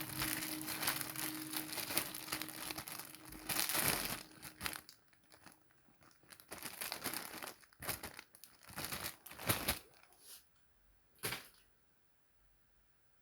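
Packaging crinkling and rustling as it is handled and pulled apart: continuous for about the first five seconds, then in short separate bursts that stop about two seconds before the end.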